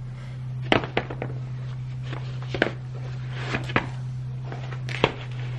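A pair of Nike running shoes dropped onto a concrete garage floor, landing with two quick knocks, then feet worked into them with a few more knocks and scuffs, over a steady low hum.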